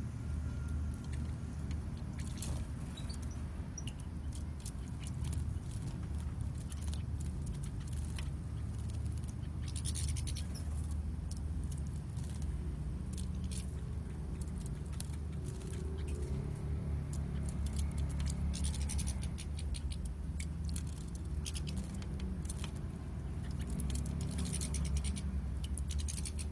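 European goldfinches bathing in a shallow tray of water: light splashing and wing-fluttering in several short bouts, over a steady low hum.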